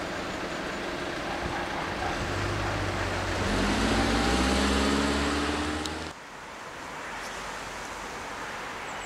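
A car drives past close by, its engine rising in pitch as it accelerates away, over a background of road noise. About six seconds in the sound cuts off abruptly, leaving quieter traffic noise.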